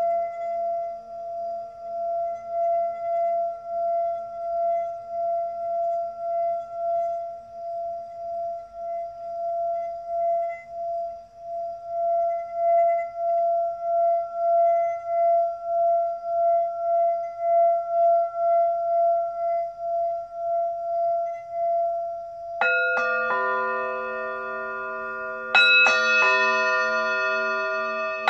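A singing bowl sustaining one steady ringing tone that swells and fades about one and a half times a second. About 22 seconds in a second bowl is struck, and a third about three seconds later, layering higher and lower ringing tones that hang on.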